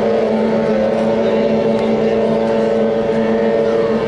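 Several 15 hp outboard racing boats running at full throttle, their engines making a steady, unchanging drone.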